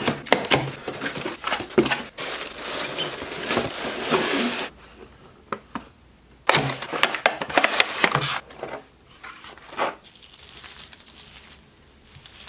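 A box cutter slits the packing tape on a cardboard shipping box, followed by scraping, rustling and clicking as the box is opened, for about four and a half seconds. After a short lull comes a second loud burst of cardboard handling. Faint plastic-bag crinkling follows near the end.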